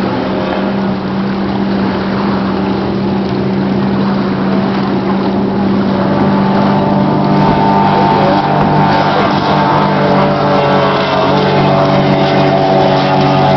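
Cigarette speedboat's engines droning steadily at high speed, growing louder about halfway through as the boat runs closer.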